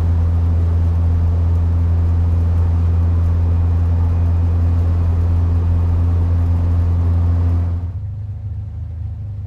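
The 2054cc air-cooled flat-four engine of a 1973 VW Beetle, on dual Weber IDF 44 carburettors, running at steady revs with the car under way, heard from inside the cabin as a steady low drone. Near the end the drone drops away and the sound falls quieter.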